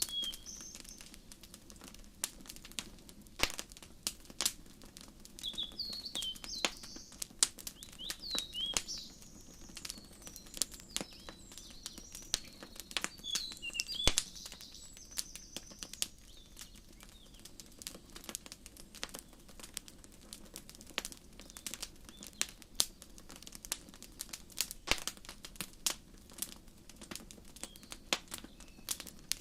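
Wood fire crackling in a fireplace, with sharp, irregular pops. Small birds chirp now and then in short runs of quick, curving notes, most around the first few seconds, around 6 to 9 seconds in, near 14 seconds in, and again at the very end.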